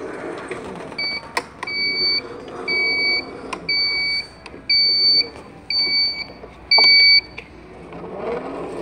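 Amigo motorized shopping cart's electronic beeper sounding seven times, about once a second, each beep a steady half-second tone. This is the warning beeper such carts sound while reversing.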